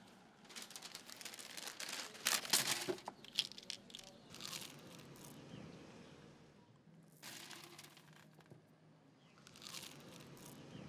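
Crinkling and rustling of packaging handled in the hands as a prescription pill bottle is unwrapped and opened. It comes in irregular bursts, loudest two to three seconds in, with shorter bursts later on.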